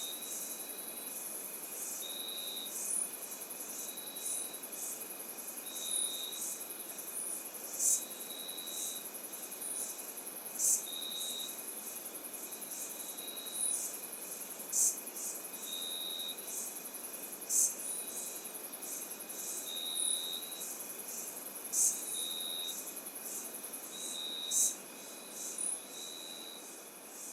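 Chorus of crickets and other insects: a steady high-pitched trill, with a short even note repeating about every two seconds and brief sharp chirps every second or two, over a soft background hiss.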